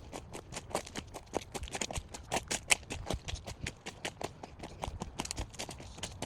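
Footsteps crunching through dry leaves and brush: an irregular run of sharp crackles and snaps, several a second.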